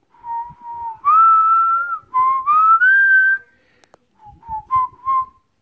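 A person whistling a short tune: a few held notes that slide upward, then a quick run of short notes after a brief pause.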